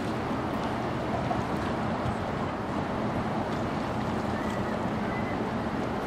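Steady low drone of the passing bulk carrier Captain Henry Jackman's engine, mixed with the rush of water along its hull and some wind on the microphone.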